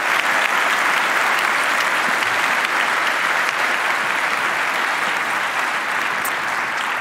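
Large audience applauding, a dense, steady clapping that eases slightly near the end.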